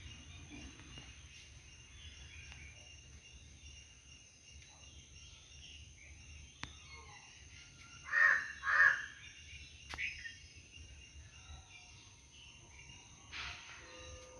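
A crow cawing twice in quick succession about eight seconds in, then once more, shorter, near ten seconds. The calls sit over a faint garden background with scattered distant bird chirps.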